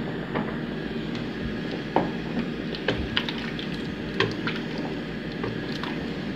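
Wooden spoon stirring a pot of beans and grains in broth, with scattered light knocks of the spoon against the metal pot over a steady background noise.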